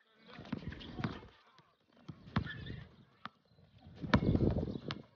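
Basketball bouncing on an outdoor hard court during a one-on-one game, a few sharp bounces, the last ones about a second apart. A low rumbling noise comes and goes in between.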